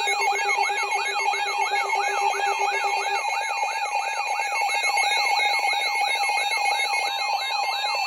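Several electronic alarm tones sounding at once: a fast falling wail repeating about three and a half times a second over steady and beeping tones. A lower pulsing beep drops out about three seconds in. This is an alert alarm announcing an incoming weather warning.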